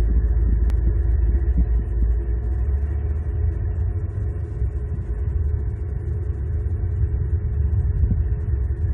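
Steady low rumble of outdoor ambience picked up by a live cam's microphone, heavy in the bass and dull, with no distinct events apart from a single faint click about a second in.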